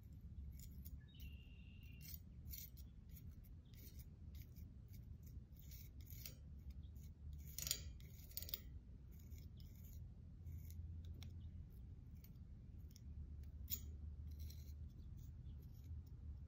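Metal palette knife scraping and clicking against a steel circular saw blade as it spreads thick acrylic paint: faint, irregular scrapes and ticks, loudest about eight seconds in.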